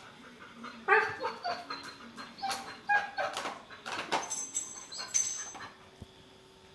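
A dog barking and whining at a vacuum cleaner in a string of short calls, starting about a second in and stopping near the end.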